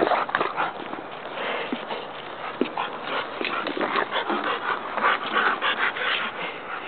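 Bulldog puppies playing together: a steady run of scuffling noises and short scrapes, with no clear barks or yips.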